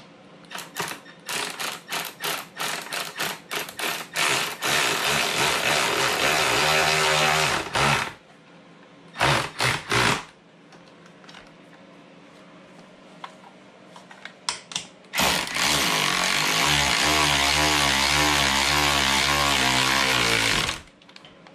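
Cordless electric ratchet driving a muffler mounting bolt: a string of short trigger pulses, a few seconds of steady running, two more brief pulses, then a longer run of about five seconds near the end whose pitch wavers.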